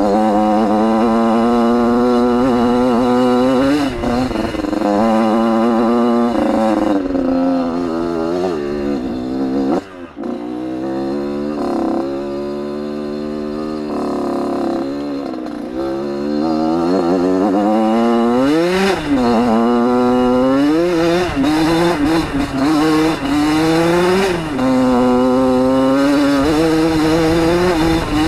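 1994 Yamaha YZ80's small two-stroke single-cylinder engine running under load, its revs rising and falling with the throttle as the dirt bike rides along. The revs drop off briefly about a third of the way through, and there is one sharp rev up and back down about two-thirds of the way through.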